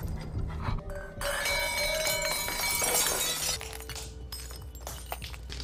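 Glass shattering: a dense spray of breaking glass with ringing notes for about two seconds, then a few small crunches of a shoe stepping on the broken shards, under a low music drone.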